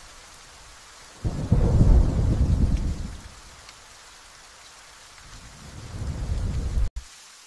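Steady rain with thunder: a sudden thunderclap about a second in rumbles for roughly two seconds, then a second rumble swells and cuts off abruptly near the end.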